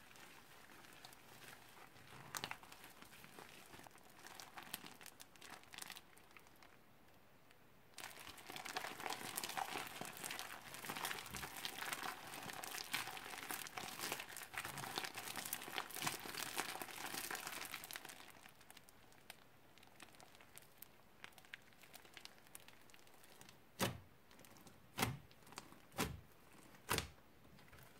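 Hands squishing and kneading slime loaded with foam and small foam beads: a wet crackle of many small clicks, faint at first and much denser from about eight to eighteen seconds in. Near the end come four sharp pops about a second apart.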